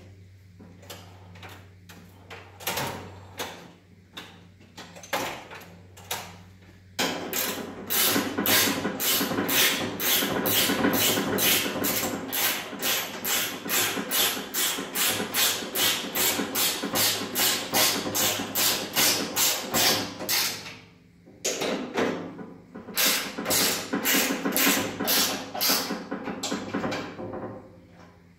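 Ratcheting wrench running nuts down onto the mounting bolts: a fast, even series of ratchet clicks, about three a second, which stops briefly about two-thirds through and then starts again. It is preceded by a few scattered clicks and knocks as the bolt is set by hand.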